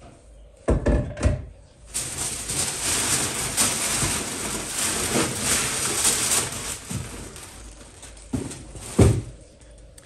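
Brown packing paper and plastic wrapping being crumpled and rustled for about five seconds, with two thumps before it and two more near the end, the last one the loudest.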